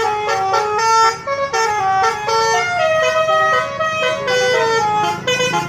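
Bus's basuri musical air horn, the 'telolet' horn, playing a fast melody of short stepped notes, one after another without a break.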